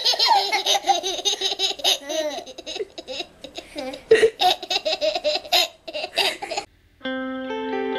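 Toddlers laughing hard in repeated high-pitched bursts of giggling, one loud burst about four seconds in. The laughter stops a little before the end; after a brief gap, music with held guitar notes begins.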